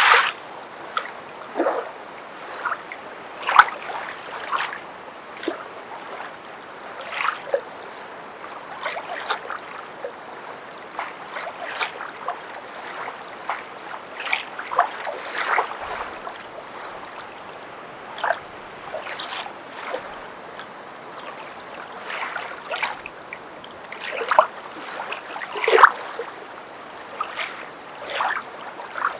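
Footsteps wading through water: irregular splashes, about one every second or two, as feet push through and lift out of the water, over a low steady wash.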